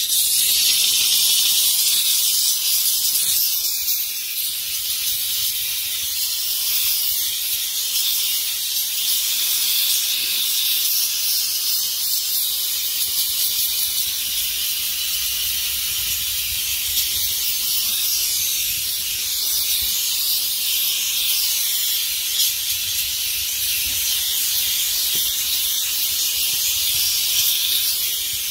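Harbor Freight handheld steam cleaner jetting steam through its brush nozzle onto a car seat: a steady, loud, high-pitched hiss.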